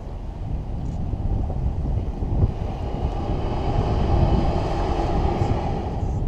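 Deep roaring rumble of sea waves forcing air through the 'lion's roar' rock cavity, swelling over the first few seconds and then holding, mixed with the boat's engine and wind on the microphone.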